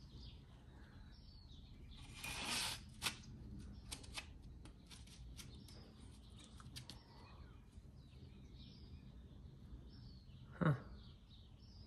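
Faint handling noises of old hand tools and packaging: a brief rustle about two seconds in, then scattered light clicks and taps, with one short louder sound near the end.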